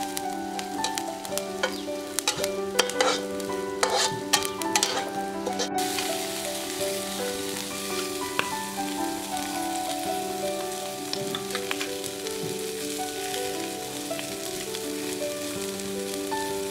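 Stir-frying in a wok: a metal spatula scraping and clattering against the wok over sizzling oil for the first six seconds or so, then a steady sizzle of crabs frying with the aromatics.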